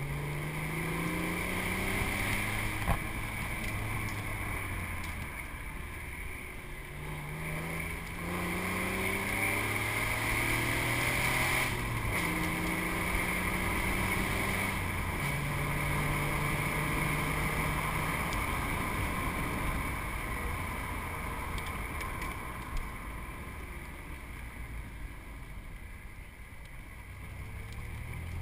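Ford V8 engine of a Cobra, heard from the open cockpit while the car is driven hard uphill. The engine note climbs in pitch and drops back at each of several gear changes. Near the end it goes quieter off the throttle for several seconds, then climbs again, with steady wind and road noise underneath.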